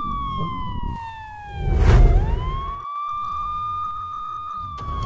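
Police siren wailing: a high tone holds, slides slowly down, sweeps quickly back up about two seconds in, then starts to fall again near the end. A loud thump about two seconds in, over a steady low rumble.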